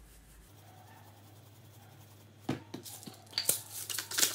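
Hand-twisted pepper grinder cracking peppercorns: a fast run of gritty clicks, about five a second, beginning in the last second, after a single click about two and a half seconds in.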